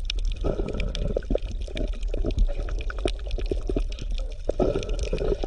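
Bubbling, gurgling water, like an underwater ambience, with many small irregular pops and clicks.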